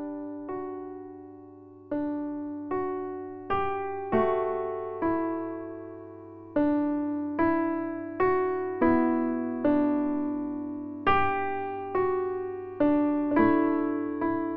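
Background music: slow, gentle piano notes and chords, each struck and left to die away, about one a second, over a steady low drone.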